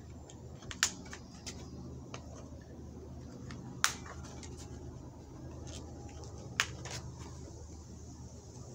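Sharp plastic clicks as the snaps at the corners of a flexible fold-flat plastic camp plate are pressed together to fold it into a small dish. There are three loud clicks a few seconds apart, with fainter ones between.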